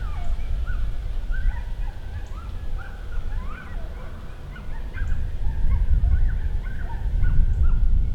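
A group of coyotes yipping and howling together, a chorus of many short overlapping rising and falling calls, answering a howl. Wind rumbles on the microphone underneath.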